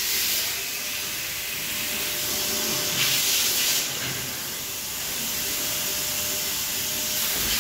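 Small Toyota car's engine running under an open hood during throttle synchronisation, heard mostly as a steady hissing rush. The rush swells for about a second some three seconds in.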